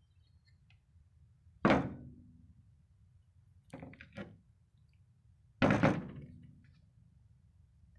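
Two heavy metal thunks about four seconds apart, each ringing briefly as it dies away, with two lighter knocks between them. These are impacts on the steel shell of an A/C compressor being scrapped.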